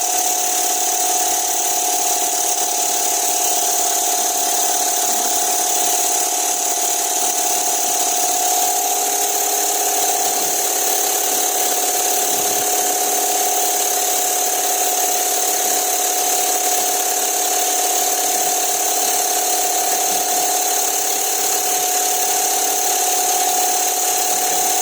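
Steady machinery noise: an unbroken mechanical drone with a constant hum and a high hiss, not changing or stopping.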